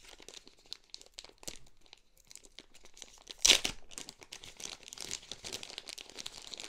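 Clear plastic packaging bag crinkling as it is handled and pulled open by hand, with a sudden loud crackle about three and a half seconds in and denser crinkling near the end.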